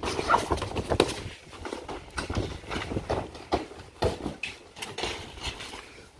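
Two people scuffling in a staged wrestling fight: a run of short knocks, thuds and scrambling footsteps, mixed with brief grunts.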